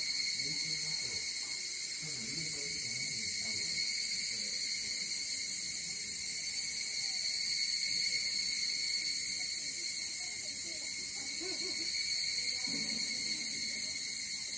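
Steady, high-pitched insect chorus from the surrounding forest, an unbroken drone. Faint distant voices murmur underneath.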